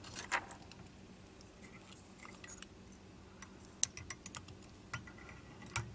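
Faint scattered clicks and ticks of tying thread and tools being handled at a fly-tying vise during a whip finish, with a few sharper clicks spread through.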